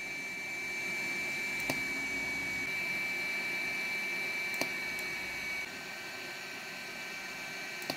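MissPeachy Pro S1 IPL hair removal handset running on the skin: a steady fan noise with a thin high whine that stops a little past halfway. Two short sharp clicks come as it is fired, about two seconds in and again about four and a half seconds in.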